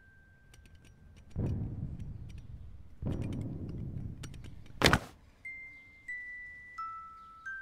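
Sound effects over sparse chime-like music: two low rumbles, each lasting a second or more, then a single sharp crack about five seconds in, followed by a few soft bell-like notes near the end.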